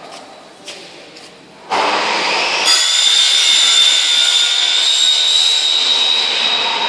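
A few light clicks, then a loud rushing hiss of compressed air with a steady high whistle starts suddenly about two seconds in. It grows louder a second later and begins to ease off at the end.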